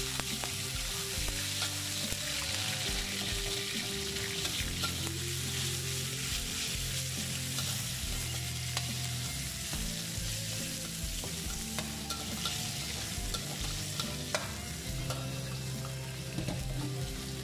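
Chopped garlic and chicken frying in hot oil in a wok, with a steady sizzling hiss, while a metal spatula stirs and scrapes them around the pan with small clicks.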